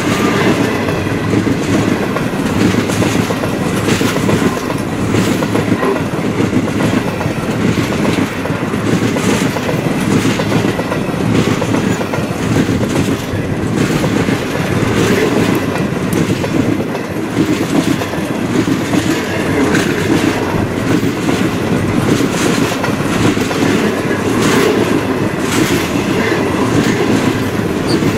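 Stainless-steel passenger carriages rolling past close by: a steady rumble of steel wheels on rail, broken by repeated clacks as the wheelsets go past.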